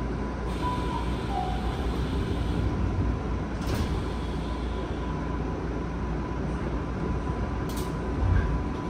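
Tokyu 5050-series commuter car standing at a platform with its equipment humming steadily. The sliding passenger doors close with a short thud a little under four seconds in, and a brief clatter and low knock follow near the end.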